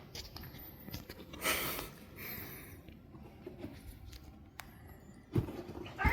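Rustling and scuffing of cats shifting about in a basket, with two short soft thumps near the end.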